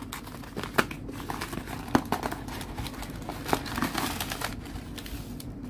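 Corrugated cardboard mailer rustling and crinkling as hands prise it open and reach inside, with three sharp clicks along the way.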